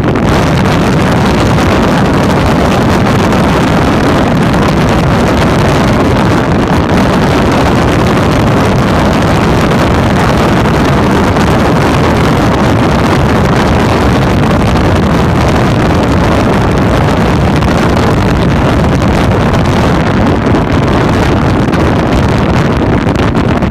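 Wind rushing over the microphone on a moving motorcycle, with the bike's engine running steadily underneath.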